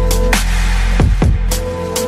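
Electronic music with a heavy bass line and sharp drum hits.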